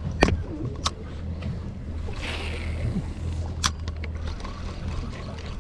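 The boat's twin Mercury Verado outboards idle with a steady low hum, under a few sharp clicks from the Penn spinning reel being handled. A brief rushing hiss comes about two seconds in.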